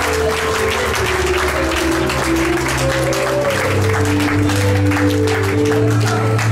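A congregation applauding over music with long held notes and a low bass line.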